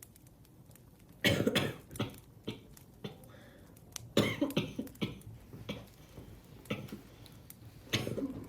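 Coughing in three bouts: a quick run of coughs about a second in, another run a little past four seconds, and a short burst near the end.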